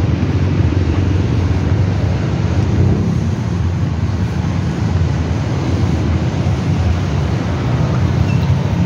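Steady low rumble of outdoor street noise, even and unbroken, with no single clear event standing out.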